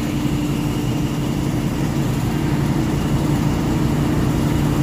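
KTMB diesel locomotive idling: a steady low engine drone with a held hum.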